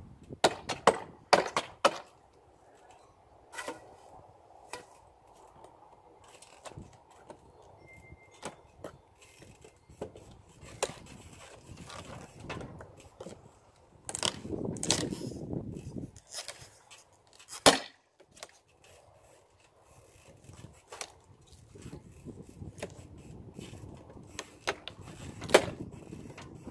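Hand tools working at an old wooden window frame: scattered knocks and taps with stretches of scraping, and one sharp knock a little past halfway.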